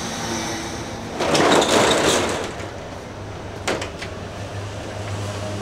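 Corrugated metal roller shutter rattling loudly for about a second as it is hauled along its guides, followed by a single sharp knock.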